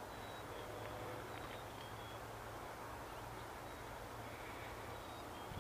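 Faint outdoor background noise with a steady low hum and a few faint, short high chirps.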